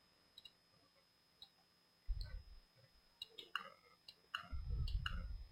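Computer mouse clicking at irregular moments, a few single clicks and then a quicker cluster between about three and a half and five seconds in. Two stretches of faint low rumble, around two seconds in and again near the end, lie under the clicks.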